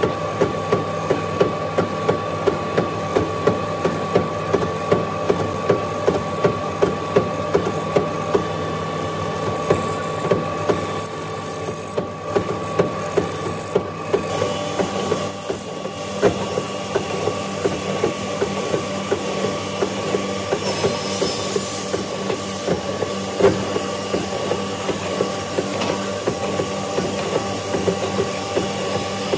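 Bench boring machine running with a steady motor whine while its bit bites repeatedly into a wooden beam, cutting a slot in a fast, regular series of cuts about two to three a second.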